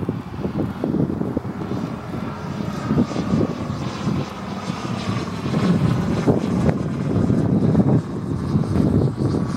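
Moki 250 cc radial engine of a giant-scale RC Hellcat, swinging a three-blade propeller, droning steadily in flight overhead. It grows louder in the second half as the plane comes closer.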